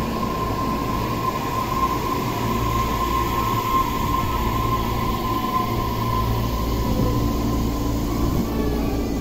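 Tobu Railway electric commuter train standing at a platform with its doors open, its onboard electrical equipment giving a steady low hum with a high whine that fades about seven seconds in.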